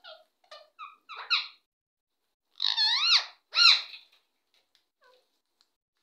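Alexandrine parakeets calling: a run of short chirps, then two loud screeches about halfway through, each swooping up and down in pitch, and a few faint chirps after.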